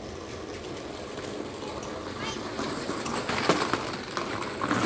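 Leafy tree branches rustling and crackling as they are pulled and stripped by hand, growing louder, with the sharpest crackles about three and a half seconds in and again near the end.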